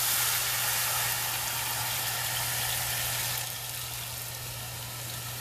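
Water pouring from a pitcher into a Dutch oven of fish carcasses, a steady hiss that eases about three and a half seconds in, over a steady low hum.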